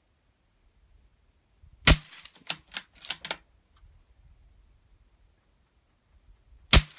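Two suppressed .17 HMR rifle shots, about five seconds apart, from a Ruger 77/17 bolt-action fitted with a Dead Air Mask HD rimfire suppressor. After the first shot the bolt is worked, giving a quick run of sharp metallic clicks.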